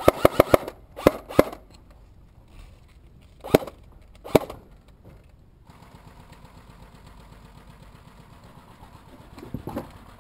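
Airsoft gun firing: a quick string of about four sharp pops, two more about a second in, then two single shots a few seconds later.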